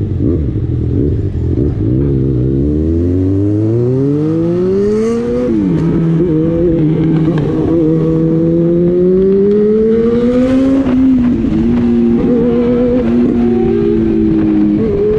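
Yamaha XJ6's 600 cc inline-four engine pulling away and accelerating through the gears. The pitch climbs for a few seconds, drops at a gear change about five and a half seconds in, and climbs again to a second shift near eleven seconds. After that it runs at a steady cruise.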